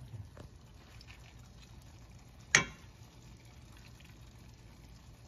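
Rice being spooned into the biryani pot in a layer: faint soft spooning sounds, with one sharp knock about two and a half seconds in as the serving spoon strikes the pot.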